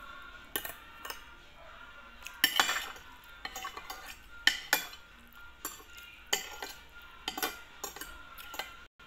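Spoon and fork clinking and scraping against a plate at an irregular pace, as food is picked apart and scooped up.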